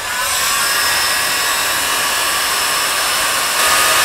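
Handheld heat gun switched on and running steadily, a rush of air with a faint whine in it, a little louder near the end. It is blowing hot air onto old vinyl decals to make them bubble up for scraping.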